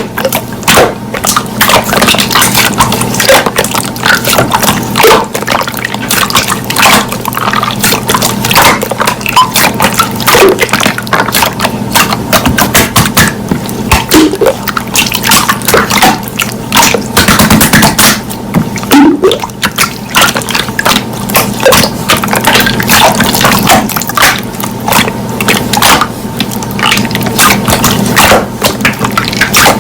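Slime being squished, stretched and pressed by hand, giving a steady run of wet, sticky clicks and pops.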